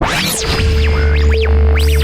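Electronic music: synthesizer tones sweeping up and down in arcs over a steady low bass drone.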